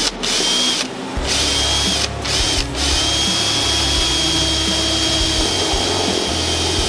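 Cordless drill-driver motor whining as its bit turns into a solid-wood drawer corner. It runs in a few short trigger bursts at first, then holds a steady run from about three seconds in.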